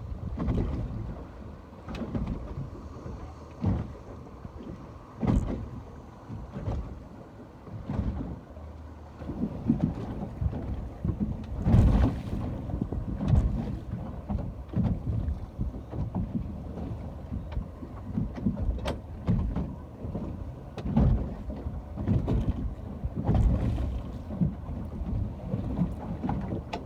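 Ocean water sloshing and splashing in irregular surges every second or two, with wind on the microphone.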